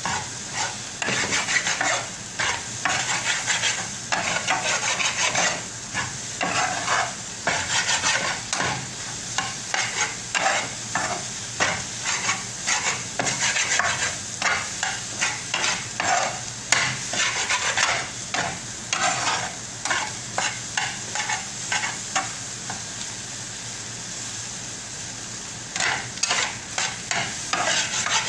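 Scrambled eggs (anda bhurji) being stirred and scraped around a pan of hot oil, a stroke or two a second over a steady sizzle. The stirring stops for a few seconds near the end, leaving only the sizzle, then starts again.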